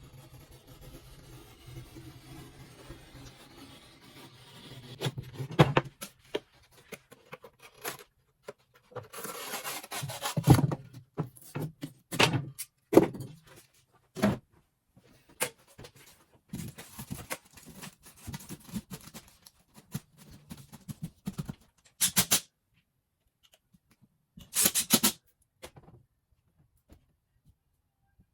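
Hand work on drywall: scraping, rubbing and sharp knocks in short bursts, broken by sudden silent gaps.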